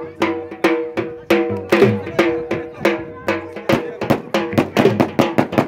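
Dhol drum beating a fast attan dance rhythm, sharp strikes over a ringing drone of steady pitches. The beat quickens about halfway through.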